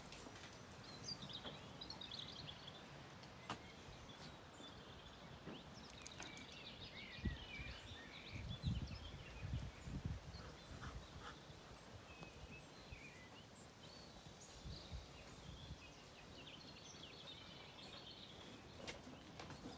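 Faint birdsong: scattered short high chirps and twitters from small birds, with a few soft low thuds around the middle.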